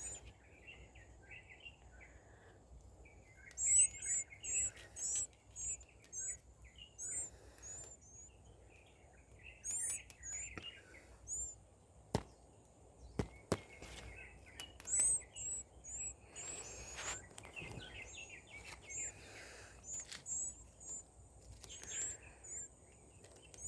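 Young birds cheeping: short, high-pitched chirps coming in clusters, with a couple of sharp taps partway through.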